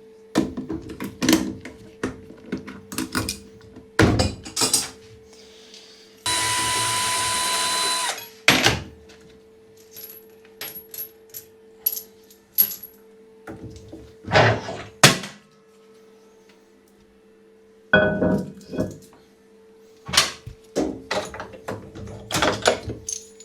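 A power drill/driver runs steadily for about two seconds, unscrewing fasteners while a washing machine is taken apart. Around it are scattered clicks and knocks of tools and metal parts being handled.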